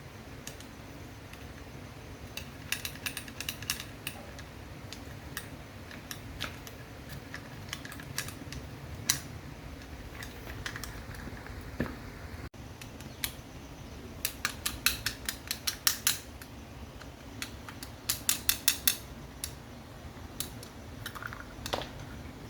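Sharp clicks and taps of hand work on small parts, scattered at first, then in two quick runs of about half a dozen clicks each in the second half.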